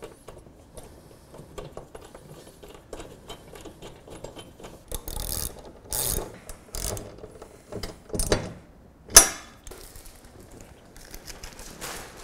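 Ratchet tool clicking in short runs as the mounting brackets are screwed onto the back of a display panel. A few louder scraping noises come in the middle, the sharpest about nine seconds in.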